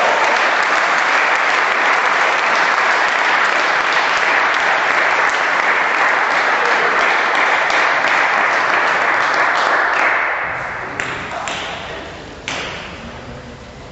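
Spectators applauding after a point in a table tennis match, the clapping dying away about ten seconds in; a couple of sharp knocks sound near the end.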